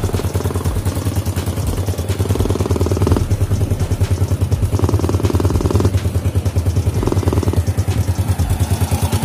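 Small four-stroke motorcycle engine running just after a top-end rebuild and rocker arm replacement, firing in a fast, even pulse, its note changing a few times. There is a leak at the exhaust port, which the mechanic takes to be behind the popping from the exhaust.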